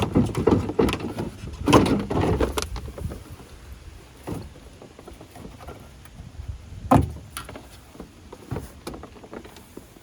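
Hollow plastic knocks, rattles and rubbing from the car's rear bumper cover being handled. The handling is busiest in the first few seconds, with one sharp knock about seven seconds in and lighter taps after.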